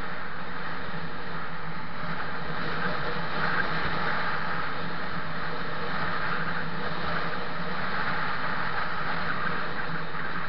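Steady wind rush on the microphone and road noise from a vehicle travelling at constant speed, over a low, even engine hum.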